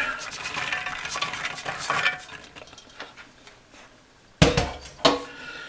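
Soaked Great Northern beans poured from a bowl into a slow cooker pan: a dense patter of many small hits that thins out and stops after about two to three seconds. Past the middle, a loud knock and then a lighter one.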